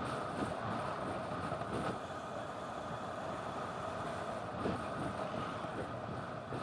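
Steady rush of wind over a bicycle-mounted camera's microphone and road-bike tyres rolling on asphalt, with a couple of brief knocks.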